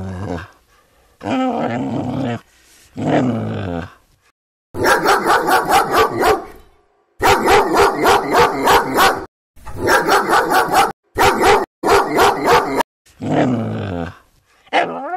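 A dog barking in rapid runs of short barks, about five a second, with a few longer calls of about a second each that fall in pitch near the start and again near the end.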